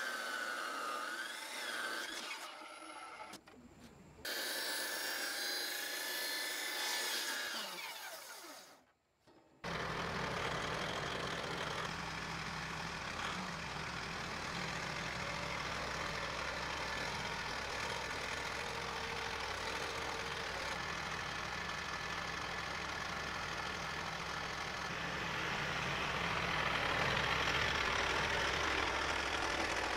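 Heavy circular saw cutting through a wooden railroad tie, its blade whine falling as it winds down about eight seconds in. After a brief silence, a tractor engine runs steadily, a little louder near the end.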